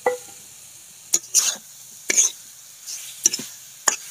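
Steel spatula scraping and stirring fried potatoes through spice paste in a metal karai, a short scrape every half second to a second, some in quick pairs, with a knock at the start. A faint sizzle of the frying paste runs beneath.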